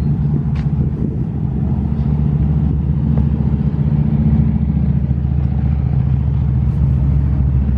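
Steady low drone of a car driving, the engine and road noise even and unbroken.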